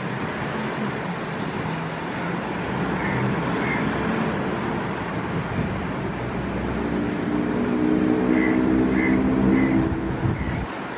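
A Bukit Panjang LRT train (Bombardier CX-100 cars on rubber tyres) running along its elevated concrete guideway toward and past the listener. It makes a steady rumble that grows louder as it nears, with a droning hum of several pitches in the last few seconds. A bird chirps a few times.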